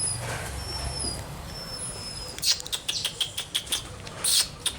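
Puppy giving high, thin squeaks, several short peeps in a row, then a rapid run of clicks and scuffles from about halfway through.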